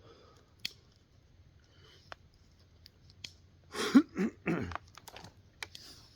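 Person drinking from a water bottle: a few small clicks and knocks, then three loud gulps in quick succession about four seconds in.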